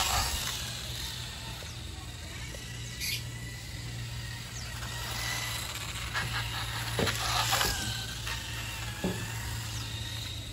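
Electric motor of a 1/8-scale Kyosho Hanging On Racer RC motorcycle whining as it rides, its pitch wavering up and down with the throttle, with a few louder rushes as it passes close by, the loudest about seven seconds in.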